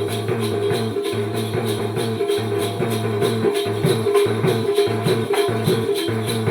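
Konkan folk dance music: a steady quick beat of jingling percussion, about three strokes a second, over sustained low notes.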